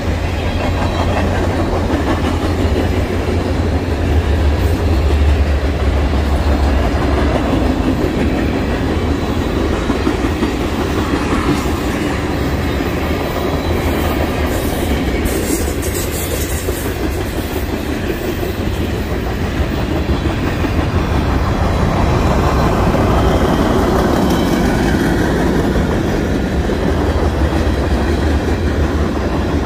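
Freight train cars rolling past close by: covered hoppers, open-top hoppers, a centerbeam flatcar and tank cars. Their steel wheels make a steady loud rumble, with clattering as the wheels cross the rail joints.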